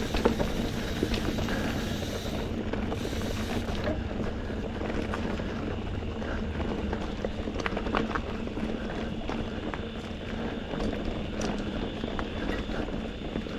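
NS Eccentric Chromo steel hardtail mountain bike riding along a dirt trail: steady tyre and wind noise on the microphone, with scattered sharp clicks and knocks from the bike over the ground.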